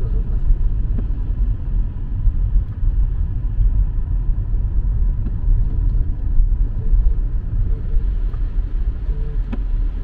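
A car driving on a highway: a steady, low road and engine rumble.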